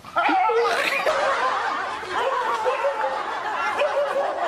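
Several people laughing together, their voices overlapping. The laughter starts just after the beginning and carries on throughout, typical of a laugh track laid over a comedy clip.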